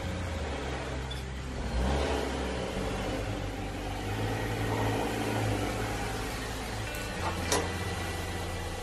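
Subaru Outback pulling up a paved driveway and coming to a stop, its engine running, with a sharp click near the end.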